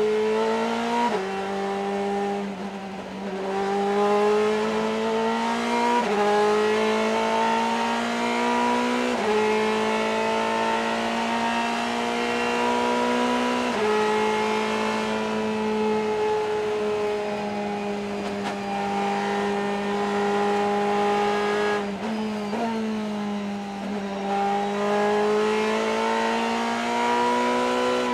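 Ferrari GT race car's V8 engine at racing speed, heard from on board: the note climbs steadily under full throttle and drops sharply at each gear change, several times over, with a long steady stretch in the middle.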